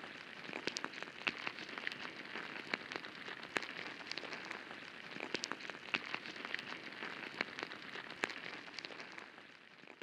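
Quiet rainforest ambience: a soft even hiss scattered with many irregular light ticks and taps, fading out near the end.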